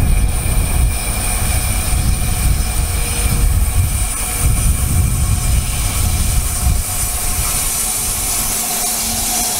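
Electric-hauled freight train, led by a DB class 185 locomotive, approaching and drawing close: a steady heavy low rumble, with a hiss of wheels on rail that grows louder over the last few seconds as the locomotive nears.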